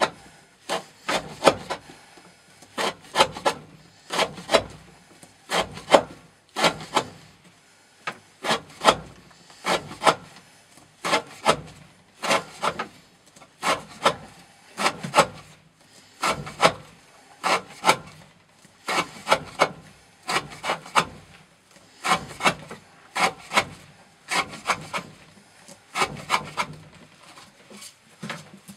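A knife blade sawing through rope over and over, a cut-to-dull test of the edge. Each cut is a cluster of short rasping strokes, about one cut every second and a half.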